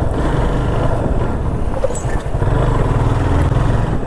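Motorcycle engine running steadily while the bike is ridden, a low rapid pulsing with a rush of wind and road noise over it.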